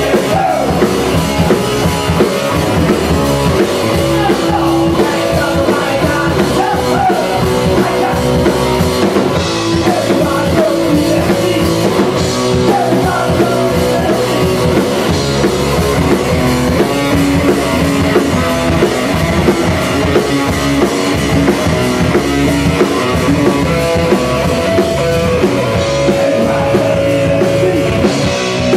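Live rock band playing loud: electric guitar and drum kit, with held guitar notes over a steady beat.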